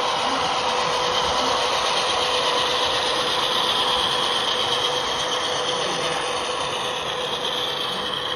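Model diesel locomotives running past on a model railroad, a steady mechanical hum with a diesel engine sound from their sound decoders, over the rolling of wheels on the track as boxcars follow.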